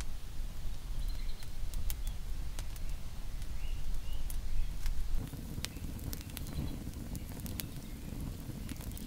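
Wood campfire crackling with scattered sharp pops over a low rush of burning flames, which becomes fuller about five seconds in.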